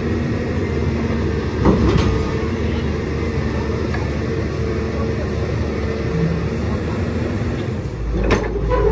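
Caterpillar long-reach excavator's diesel engine running steadily, with a metallic clank about two seconds in and another near the end.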